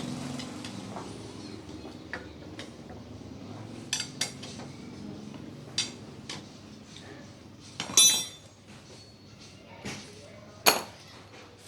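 Metal hand tools and engine parts clinking and knocking against each other on a workbench, a few scattered strikes, the loudest a ringing clink about eight seconds in and another sharp one near the end.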